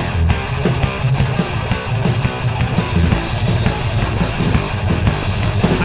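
Instrumental passage of a rock/metal song: distorted guitars, bass and a full drum kit playing steadily, without vocals.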